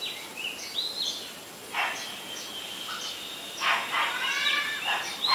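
Birds calling: short rising chirps, then from about three and a half seconds in a louder run of harsh notes in quick succession.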